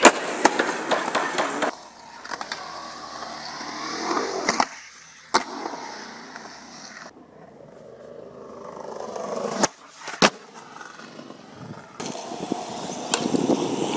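Skateboard wheels rolling on concrete, with several sharp clacks of the board striking the ground.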